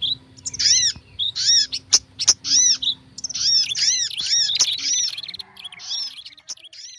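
Bird-lure recording mixing prenjak (tailorbird) calls with sunbird calls: rapid, repeated high arched chirps with sharp clicks among them, getting fainter over the last two seconds.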